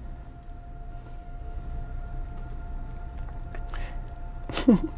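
Steady machine hum with a constant high whine running underneath, and a short voice-like sound with falling pitch near the end.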